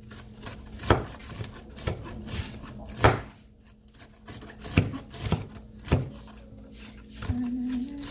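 Kitchen knife shredding a head of cabbage on a wooden cutting board: crisp slicing strokes with irregular knocks of the blade on the board, several of them loud.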